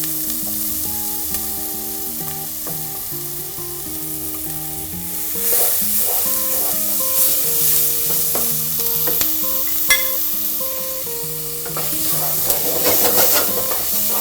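Chopped onion, green onion and garlic sizzling in hot oil in a pot as they sauté, stirred about five seconds in and again near the end, with soft background music underneath.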